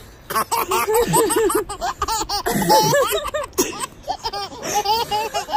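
A baby laughing heartily in a quick run of high-pitched, breathy laughs that repeat several times a second.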